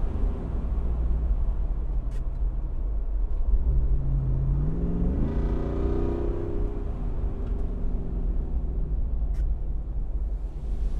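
Jeep Wrangler Rubicon 392's 6.4-litre HEMI V8 idling with a deep exhaust rumble, blipped once about halfway through: the pitch rises and falls back over about two seconds, then settles to idle again.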